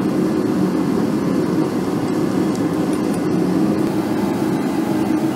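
Gas forge burners running with a steady, low rushing noise.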